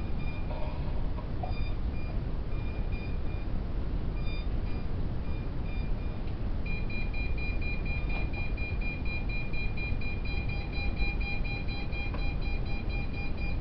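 Electronic warning beeps from quadcopter drones and their remote controllers as they are switched off. Short high beeps repeat two or three times a second, then about halfway through they turn into one steady unbroken beep that holds.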